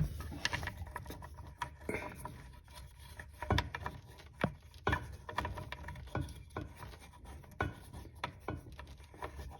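Irregular small clicks, taps and rubbing as hands fit a faucet's washer and mounting nut onto its shank from under the sink.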